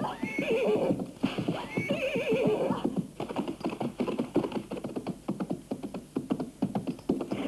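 A horse whinnies twice, then fast galloping hoofbeats follow from about three seconds in. The horse had been wounded with a dagger to make it bolt.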